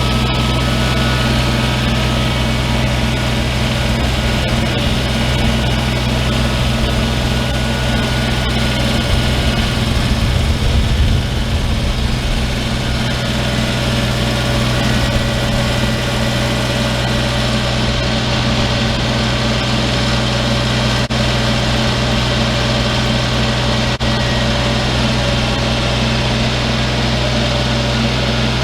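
Old tractor's engine running steadily at a constant speed, just after being started.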